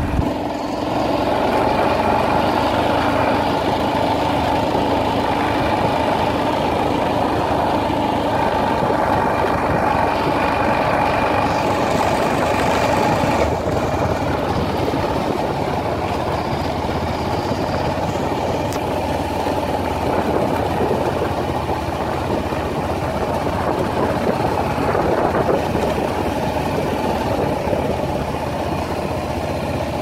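Dual-sport motorcycle engine running steadily under way on a dirt road, heard from the bike's own handlebars.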